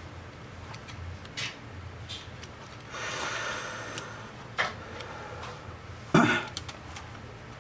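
A few light clicks and knocks over a low steady hum, with a short rustle about three seconds in and the loudest knock about six seconds in.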